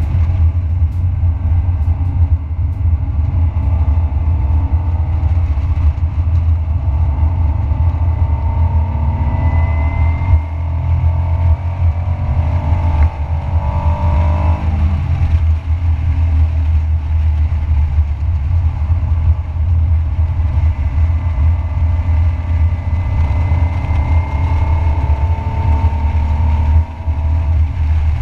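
In-cabin sound of a 1991 Honda NSX's mid-mounted 3.0-litre V6 pulling hard at track speed over a steady low rumble. The engine note climbs for several seconds, drops sharply at a gear change about halfway through, climbs again, and drops once more near the end.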